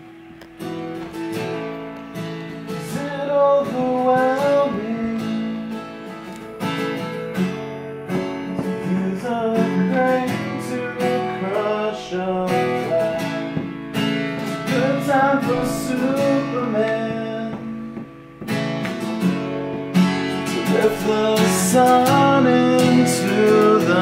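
Taylor acoustic guitar with a capo, played by hand in a continuous song, chords and picked melody notes together.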